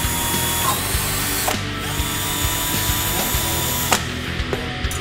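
Cordless drill running, boring a hole through the sheet-metal underside of a pickup's bed, with a short dip about a second and a half in and a sharp click near the end.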